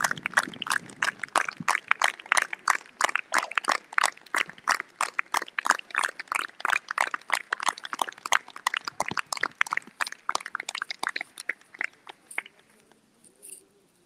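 A group of people clapping, the separate claps of each person distinct, the applause thinning out and stopping about twelve seconds in.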